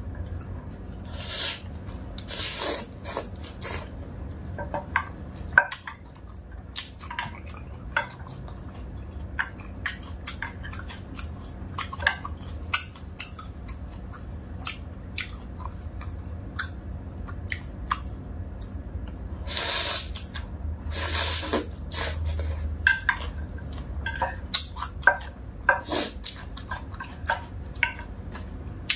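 A person eating dry instant noodles close to the microphone: wet chewing and mouth smacks with many small clicks, and a few short slurps, two of them close together about twenty seconds in.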